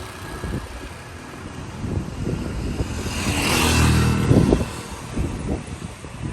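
A motor vehicle's engine passing, loudest about three to four and a half seconds in, over steady outdoor noise.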